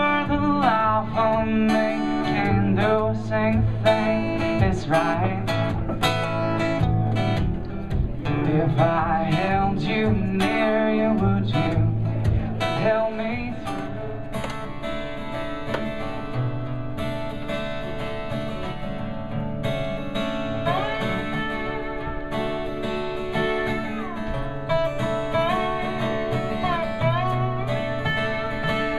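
Live acoustic music: a man sings over a strummed acoustic guitar. About 13 seconds in, the music changes to an acoustic guitar with a guitar played flat with a slide, its notes gliding up and down.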